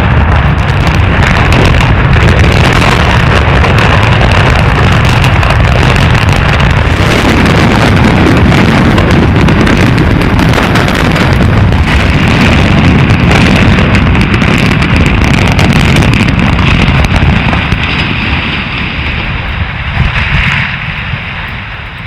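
Loud continuous rumble of a tower building collapsing in an implosion, with wind buffeting the microphone; it dies away over the last few seconds.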